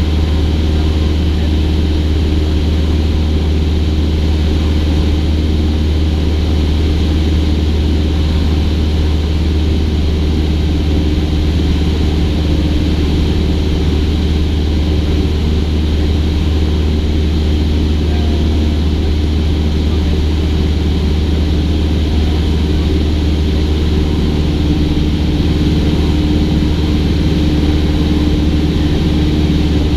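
Cessna 172's piston engine and propeller droning steadily in level flight, with a constant low hum and an unchanging pitch.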